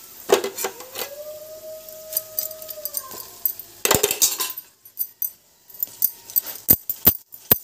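A dog gives one long howl of about two seconds, a steady tone that sags at the end. Sharp clicks and scrapes of a utensil on a griddle are heard around it, loudest about four seconds in and near the end.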